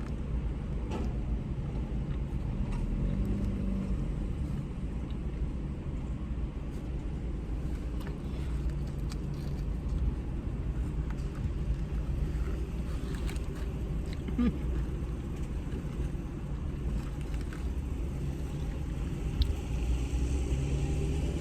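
Steady low rumble of a car heard from inside the cabin, with scattered faint clicks and small sounds of eating.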